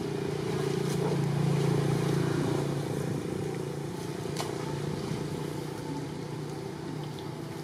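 An engine runs with a steady hum, growing louder about one to two seconds in and then slowly fading. A single sharp click comes near the middle.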